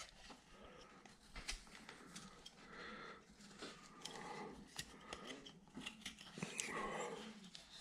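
Carving blade paring and scraping wood, faint irregular cutting strokes with small clicks, removing duplicator marks from a roughed-out carving.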